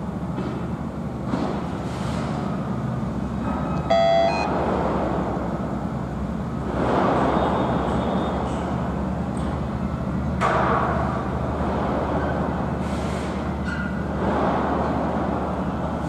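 Construction site and street noise: a steady low engine hum, with vehicles passing now and then and one short beep about four seconds in.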